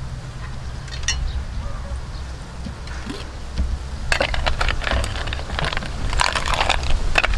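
A metal ladle clinking and scraping in a steel pot of curried snails, a quick run of clatter from about four seconds in that is busiest near the end. There is a lone click about a second in.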